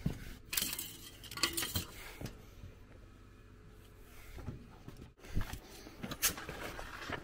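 Scattered metallic clanks, knocks and scuffs as a fire extinguisher is grabbed off an excavator and people clamber over loose rock, with a quieter stretch in the middle.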